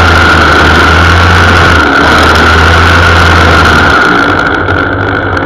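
Gas-powered string trimmer (weed eater) engine running steadily at speed, heard up close from a camera mounted on its shaft. It eases off slightly about four seconds in.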